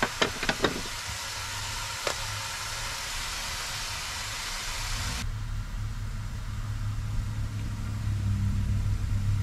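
Beef patties sizzling in a hot pan, with a few sharp clicks near the start. About five seconds in, the sizzle cuts off abruptly and a steady low hum of an idling vehicle engine takes over.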